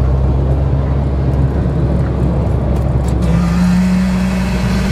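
Engines of drag-racing vehicles idling at close range, with one brought up to higher revs and held there for about a second, about three seconds in.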